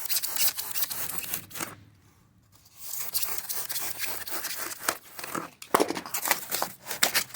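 A hand cutter's blade scraping and tearing through sheet material while a circle is cut out, a rapid crackly scratching that stops for about a second near two seconds in, then carries on.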